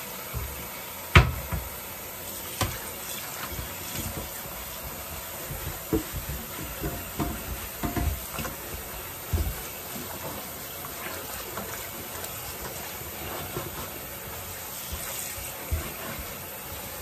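Kitchen clean-up at the sink: scattered knocks and clatters of dishes and utensils, the loudest about a second in, over a steady hiss of running water.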